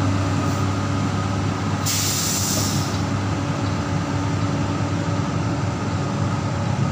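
Komatsu crawler excavator's diesel engine running steadily under load as the machine climbs onto a lowboy trailer. About two seconds in there is a sharp hiss of air lasting about a second.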